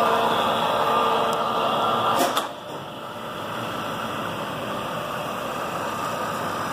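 Solberga SE1235 geared-head drill press running with its 2 hp motor, the twist drill cutting into a metal block under power down feed, a steady mechanical whine with several held tones. About two seconds in, a click and the tones drop out, leaving a quieter, steady running sound.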